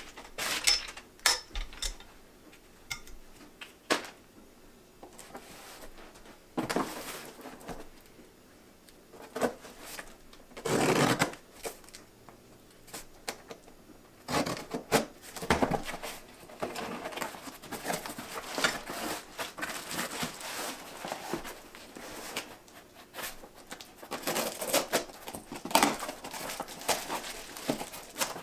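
Unboxing noise from a cardboard box and its plastic wrapping: scissors cutting the box tape, cardboard scraping and plastic crinkling, in irregular clicks and rustles with a longer, louder scraping rasp about eleven seconds in.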